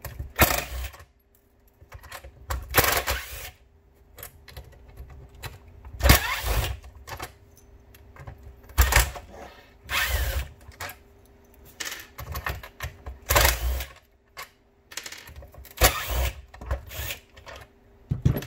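Cordless impact driver with a T15 Torx bit backing out the small screws around an instrument cluster, in about ten short runs of a second or less, one every couple of seconds.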